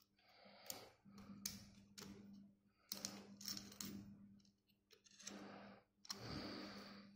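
Faint clicks and rustles of small plastic Mini 4WD kit parts being handled and pressed onto the chassis and wheel axle, scattered irregularly over a low steady hum.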